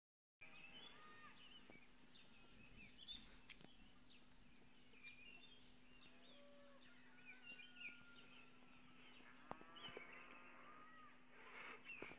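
Faint, frequent short bird chirps and calls over a low steady hum, with a few light clicks.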